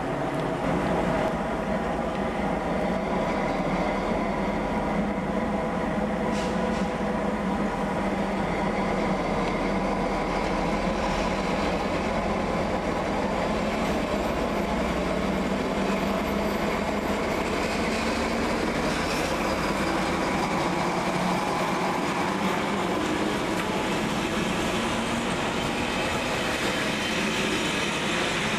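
Train running on the rails, a steady rumble that keeps an even level throughout.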